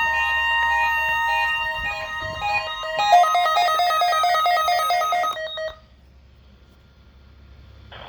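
Electronic emergency alert signal: several steady tones sounding together, some notes alternating in a fast pattern, with falling sweeps joining about three seconds in. It cuts off just before six seconds into a low hiss.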